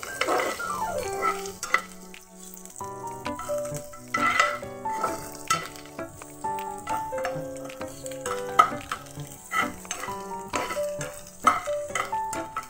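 Spatula stirring chillies, garlic and ginger frying in mustard oil in a non-stick pan: a light sizzle with frequent short clicks and scrapes of the spatula against the pan. A background instrumental melody of held notes stepping from pitch to pitch plays throughout.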